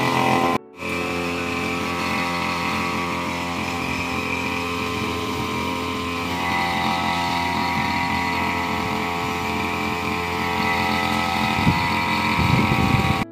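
Backpack brush cutter's small engine running steadily as it cuts grass. The sound drops out for a moment about half a second in, then grows a little louder and rougher near the end.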